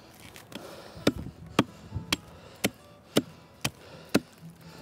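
An axe chopping into a wet downed log, notching a back cut: seven sharp strikes about two a second, starting about a second in.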